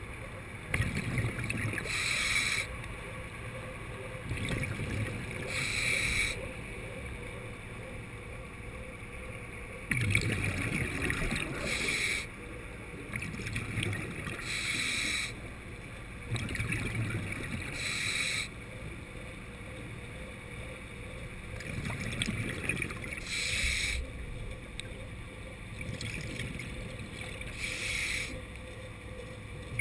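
A diver breathing underwater through a regulator: about a second of hiss with each inhalation, every three to four seconds, alternating with the low rumble of exhaled bubbles.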